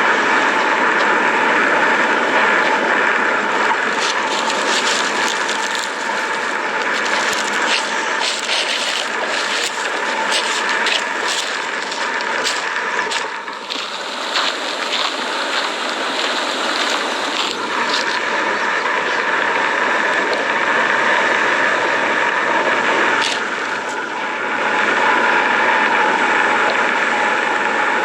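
A steady rushing drone with two held tones in it, which the uploader likens to steam or gases being pushed to the surface. Irregular clicks and crackles run through the middle, then thin out.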